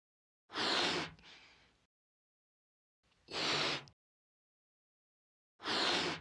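Three breathy puffs of blown air, each about half a second with a short fading tail and spaced about two and a half seconds apart, inflating a balloon.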